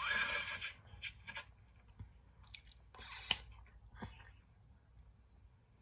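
Soft rustling with scattered small clicks, the loudest hiss-like bursts right at the start and about three seconds in.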